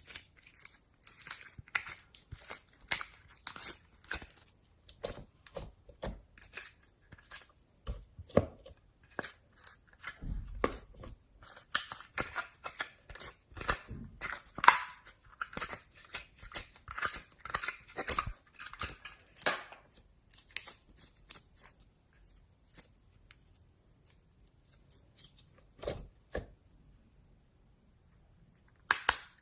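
Slime being squeezed and stretched by hand, giving rapid sticky crackles and pops. After about 20 seconds these thin out to a few scattered clicks.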